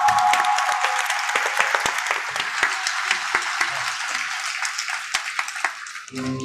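Concert audience applauding after a piece ends, the clapping thinning out near the end as the next piece's music begins.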